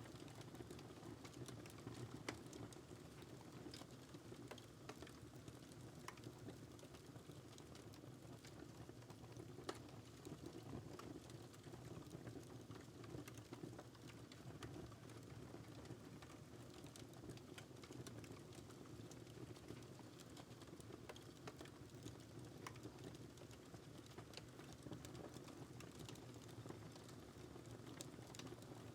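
A wood fire crackling in a fireplace: faint, irregular sharp snaps over a low, steady rumble.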